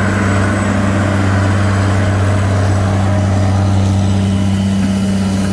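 John Deere 9200 articulated tractor's diesel engine running under load, a deep steady drone that holds one pitch, as the tractor passes close while pulling a disc harrow.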